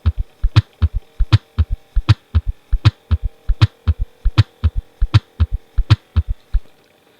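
Recorded heart sounds in a gallop rhythm at about 80 beats a minute: an extra heart sound (S3 or S4) added to the normal first and second sounds. Low thumps repeat in even clusters over a faint steady hum, and stop near the end.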